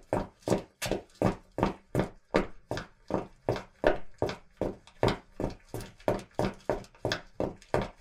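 Quick, evenly paced footsteps at about three steps a second, each step a short sharp hit on a hard surface.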